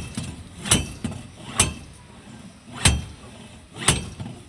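Repeated hammer strikes with a short metallic ring, four blows about a second apart.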